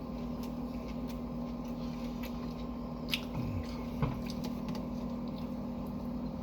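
A person chewing a mouthful of a sub sandwich, with soft wet mouth sounds and a few small clicks, over a steady low hum.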